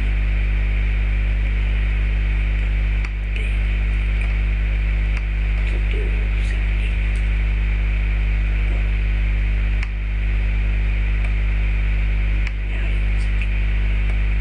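Steady electrical mains hum: a low, buzzy drone of several stacked tones with a hiss of static over it. It dips briefly a few times.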